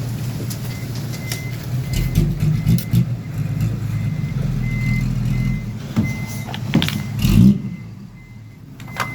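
Steady low vehicle-engine rumble with a faint high beep repeating at an even pace, about every three quarters of a second. The sound drops away briefly near the end.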